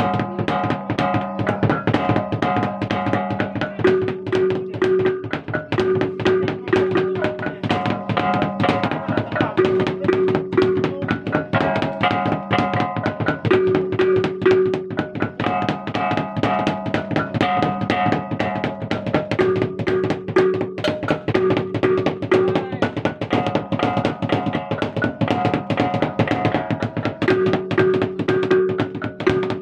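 Traditional East Flores gendang-and-gong ensemble playing: fast, dense drum strokes under repeating phrases of ringing gong notes.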